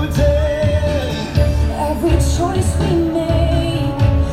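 The castle show's song played over loudspeakers: pop-style music with singing and a strong bass beat.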